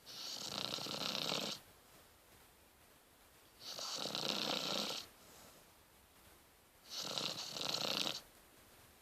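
Rottweiler puppy snoring in its sleep: three snores about three seconds apart, each lasting about a second and a half.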